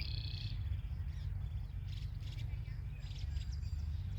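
Ducklings peeping: many short, high chirps in quick clusters near the start, about two seconds in and a little after three seconds, over a steady low rumble.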